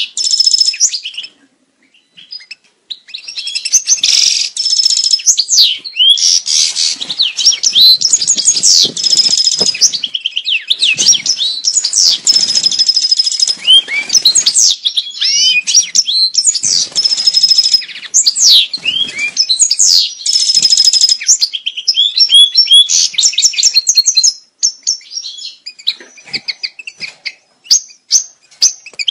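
European goldfinch singing its mating song: a rapid, loud twitter of liquid gliding notes, trills and buzzy phrases, broken by short pauses about two seconds in and near the end.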